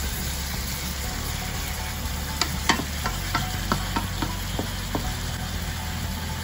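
Pork belly and onions sizzling in hot oil in a nonstick frying pan, fish sauce just poured in, while a wooden spatula stirs them. The spatula knocks against the pan in a run of sharp clicks from about two to five seconds in.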